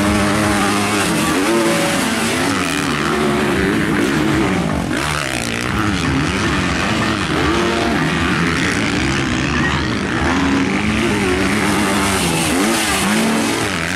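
Motocross dirt bike engines racing on a dirt track, revving up and dropping back over and over as the riders accelerate, shift and brake through the turns.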